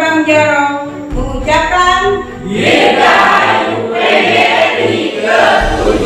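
A mixed choir of men's and women's voices singing together, with a regular low beat underneath.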